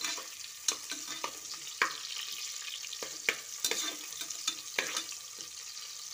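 Sliced onions sizzling in hot oil with whole spices in an aluminium pressure cooker, being fried toward brown. A steady hiss runs under irregular clicks and scrapes from a metal spatula knocking against the pot as the onions are stirred.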